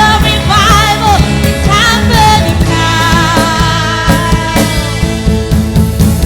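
Band music with a singer: wavering sung phrases, then a long held note in the middle, over drums and a steady bass.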